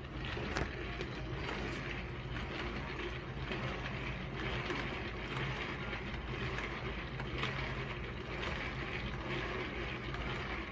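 Tupperware Whip 'N Mix Chef, a hand-powered geared mixer, being worked steadily: a continuous whirring rattle of plastic gears and beaters, with many small clicks, as it mixes wet cake-batter ingredients.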